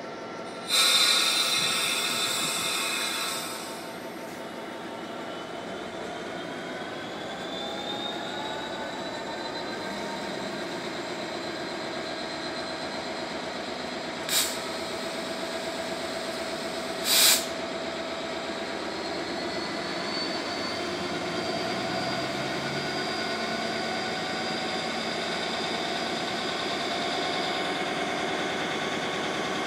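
Class 66 diesel locomotive's EMD two-stroke V12 running as it moves slowly along the track, its engine note rising in the middle and then holding steady. A loud hiss lasts about two seconds near the start, and two sharp bangs come about three seconds apart halfway through.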